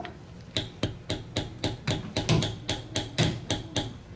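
A mallet striking a steel leather-stamping tool into saddle leather, hand tooling a pattern. It goes as quick, fairly even taps, about four a second, some louder than others.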